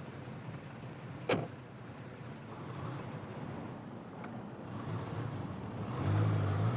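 A car running with a steady rush of engine and road noise, and a single sharp knock about a second and a half in. Low music comes in near the end.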